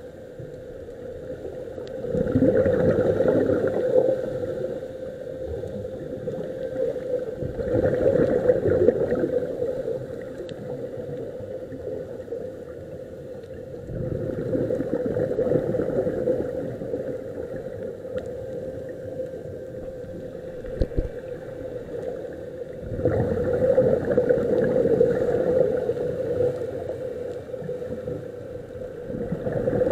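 Muffled underwater sound through a camera housing: scuba divers' exhaled regulator bubbles, swelling and fading every several seconds over a steady hum.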